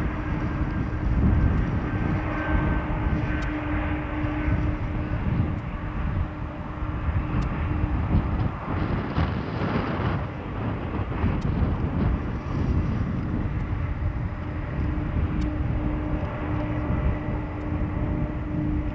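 Boeing 747's four jet engines at takeoff thrust: a deep, steady roar heavy in bass, with a constant hum under it, as the jet lifts off and climbs away.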